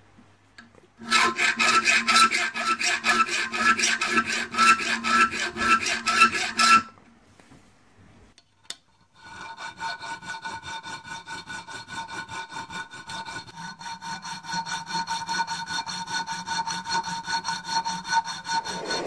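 Round file rasping back and forth across the spine of a 1095 steel tanto blade, cutting notches, with quick strokes that set the blade ringing. The filing stops about seven seconds in, and after a single click it resumes softer and steadier about two seconds later.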